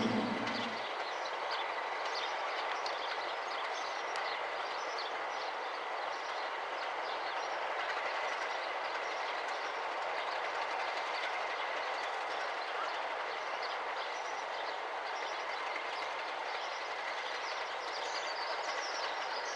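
Freight train of aggregate wagons rolling past: a steady rush of steel wheels on rail with light clicks over the rail joints and a thin steady whine.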